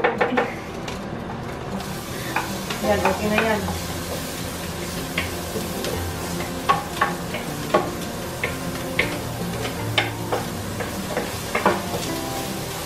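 Chopped garlic sizzling in oil in a square pan, stirred with a wooden spatula that knocks and scrapes against the pan in short sharp ticks. The sizzle comes up about two seconds in as the garlic meets the heating oil.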